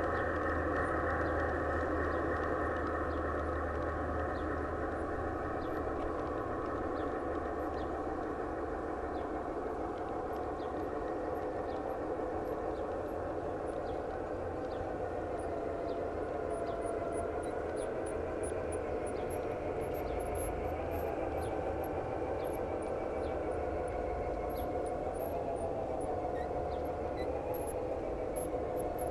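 G-scale model freight train rolling past: a steady humming drone with faint, regular ticks from the cars' wheels.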